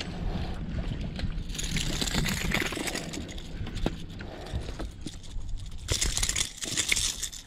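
A small largemouth-type bass being reeled to the boat and lifted aboard: water splashing with reel and line handling noise, loudest near the end, over a steady low hum.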